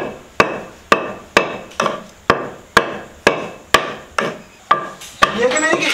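Long wooden pestle pounding into a mortar: steady, even strikes about two a second, each ringing briefly.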